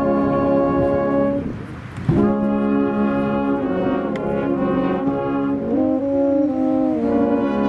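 Brass band playing slow music in long held chords, with a brief dip about one and a half seconds in before the next chord comes in sharply.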